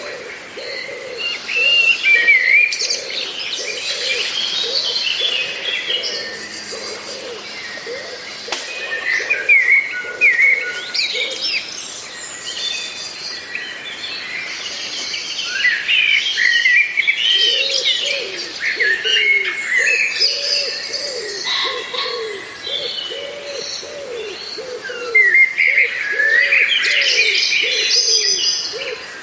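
Several songbirds singing and chirping together. A low call repeats about twice a second beneath them, dropping out for a few seconds midway.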